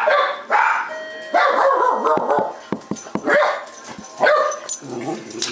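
A dog barking repeatedly, a run of loud barks about a second apart.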